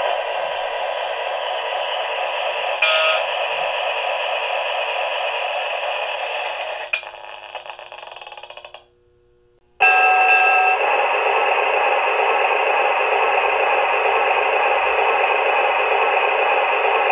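Sound effects from the onboard speakers of MTH O-scale model locomotives. First a diesel F-unit's engine sound runs steadily, with a short sharp sound about three seconds in, then fades out. After a brief pause, a doodlebug motor car's sound starts with a one-second tone and runs loud and steady.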